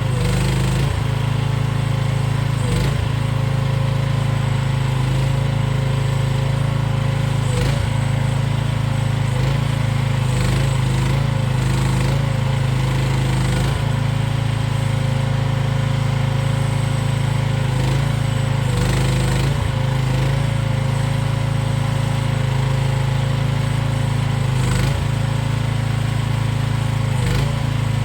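AGT QK16R mini excavator's small engine running steadily, its pitch dipping briefly every few seconds as the hydraulics take load.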